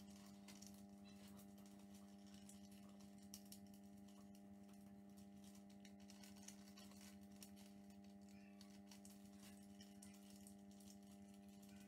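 Near silence: a steady low electrical hum, with faint crackling of thin paper being handled and folded.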